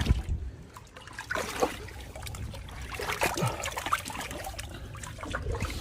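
Shallow water trickling in a partly drained tide pool, with irregular small splashes.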